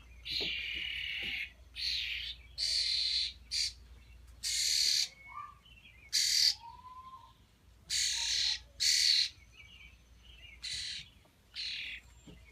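Young European starlings giving repeated harsh, raspy begging calls, about a dozen in a row, the sound of fledglings asking to be fed. A few faint thin chirps sound between them.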